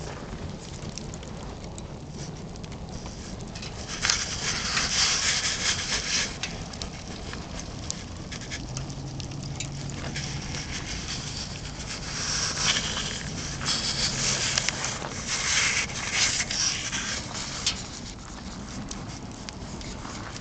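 Fire burning inside a perforated steel burn barrel: scattered crackles over a rushing noise that surges louder about a fifth of the way in and again past the middle.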